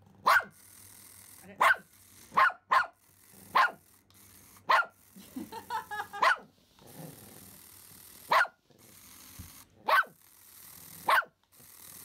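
A Pomeranian barking in excitement at a remote-control toy rat: about ten short, sharp barks, spaced irregularly.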